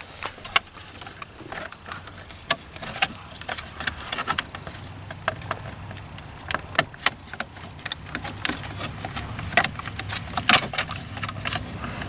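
Irregular light clicks and rattles of hard plastic as the top cover of a steering column shroud is wiggled and pulled loose by hand.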